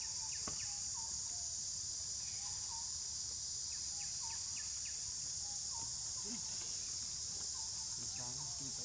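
Steady high-pitched drone of forest insects, with scattered short bird chirps; a wavering call begins near the end.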